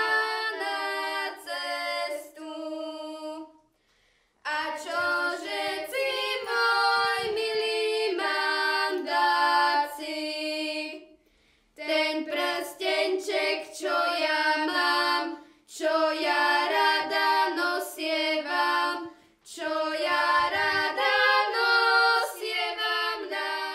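A girl singing unaccompanied: a slow song of long held notes, broken by short pauses between phrases.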